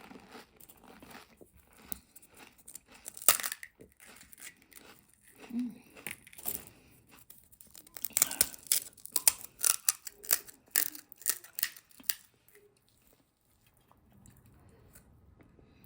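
Crinkling and crunching of dry, crisp snack food and its packaging: a string of sharp crackles, thickest in the second half, then quieter near the end.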